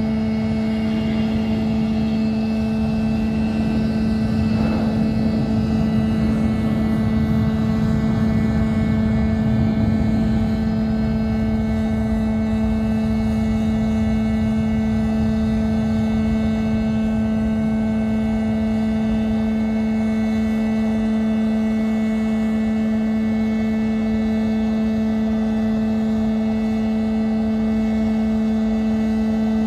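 Northrop F-5 jets' engines running steadily at idle: a constant rushing engine noise with a strong steady hum and a whine, swelling slightly a few seconds in.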